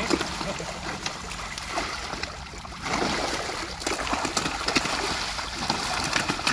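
Water splashing and trickling, with many small sharp splashes and clicks; it dips quieter about two seconds in and picks up again a second later.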